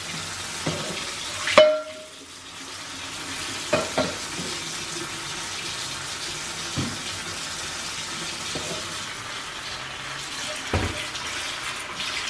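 Kitchen mixer tap running steadily into a stainless steel sink while dishes are washed up, with a few short clinks and knocks of dishes and a pan against the sink.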